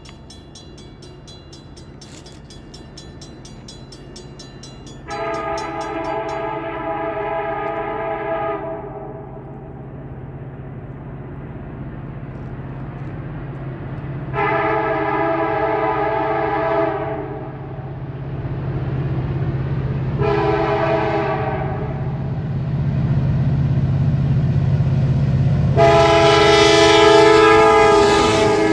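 Norfolk Southern SD70ACE diesel locomotive sounding its horn in the grade-crossing pattern, long, long, short, long, with the last blast held as the locomotive reaches and passes. Under the horn its diesel engine rumbles, growing louder as the freight train approaches.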